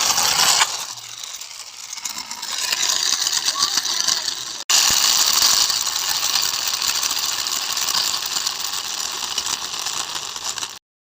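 A small battery-powered toy's motor and gears running with a fast, steady rattle. It breaks off abruptly just under halfway through, then carries on and cuts out just before the end.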